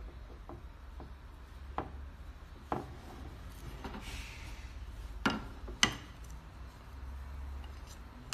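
Wooden bow drill parts handled on a plastic tabletop: scattered light clicks and knocks of wooden dowels and staves, the two loudest about five and six seconds in, with a brief rub of cord on wood in between. A low steady hum runs underneath.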